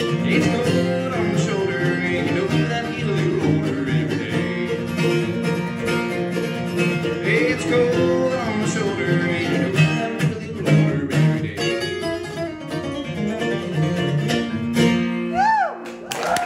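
Acoustic guitar and mandolin playing a bluegrass instrumental break, coming to a final chord about a second before the end, as applause breaks out.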